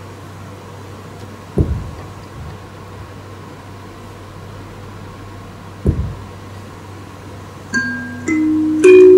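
Low steady hum with two dull thumps, then about three-quarters of the way in a run of chime-like mallet notes starts, each note ringing on over the last, the final one the loudest.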